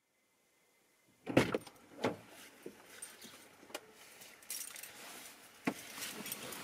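Someone getting into a car: a sharp thump a little over a second in is the loudest sound, followed by a second knock, clicks and jangling keys. A steady hiss comes in about halfway through.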